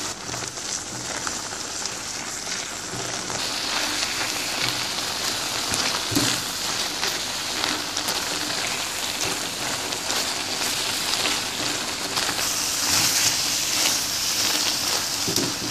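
Oil-free tomato and spice gravy bubbling and sizzling steadily in a pan on low heat as it cooks down and its water dries off, with a few light scrapes of a silicone spatula.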